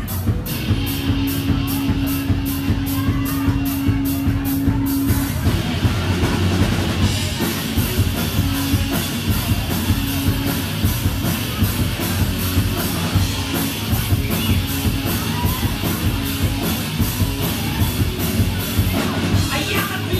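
Live rock band playing electric guitars and drums. A steady beat of high ticks, about four a second, runs under a held low note, and about five seconds in the full band comes in with a denser sound.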